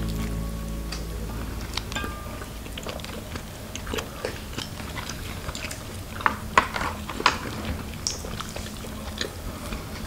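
Eating at a table: chopsticks clicking and tapping against ceramic bowls and plates, with chewing. There are scattered light taps and a few sharper clinks about six to seven seconds in.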